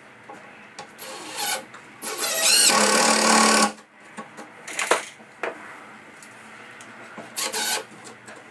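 Cordless drill driving screws into a wooden block: a short burst about a second in, then a longer run of about a second and a half with the motor pitch rising, and another brief burst near the end. A few sharp knocks come in between.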